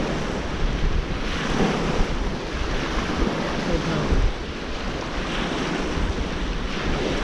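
Small waves breaking and washing through the shallows, with strong wind buffeting the microphone.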